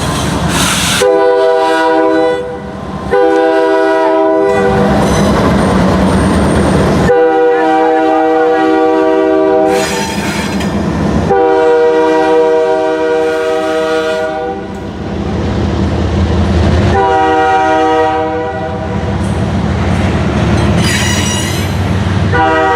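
The lead locomotive's multi-chime air horn played as a horn show: five long blasts with short gaps between them. In the gaps the diesel locomotives and the train's wheels run loud as the train passes.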